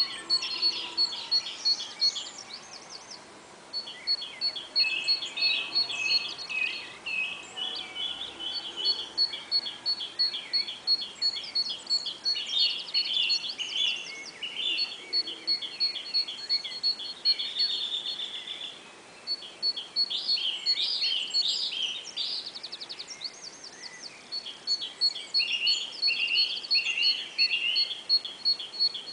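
Songbirds singing: one bird gives a varied, rapid song of chirps, trills and slurred notes, while a background bird repeats a single high pip about four times a second in long runs that stop and restart.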